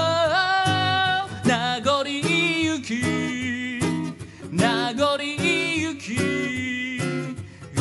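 A man singing a slow ballad to his own acoustic guitar: long held notes that waver in pitch, over strummed chords.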